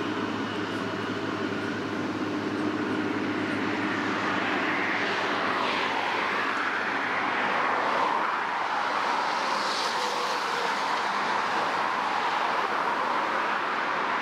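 Steady road traffic noise from vehicles passing on a busy multi-lane road, with single vehicles swelling past about five seconds in and again near ten seconds.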